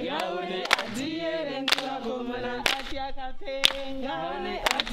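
A group singing unaccompanied, with a sharp hand clap about once a second keeping the beat.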